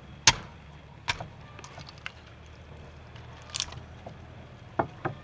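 Cleaver chopping through a raw whole chicken onto a thick wooden chopping block: about five sharp chops, the first the loudest, with two close together near the end.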